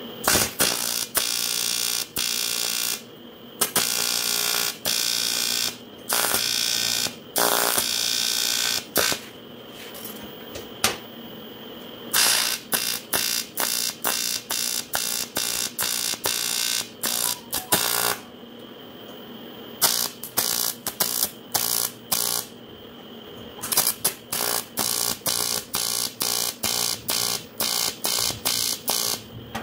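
TIG welding arc on a cast-aluminium carburetor body, struck and stopped again and again. First come a few arcs lasting a second or two, then short bursts at about two a second as the weld is built up in dabs.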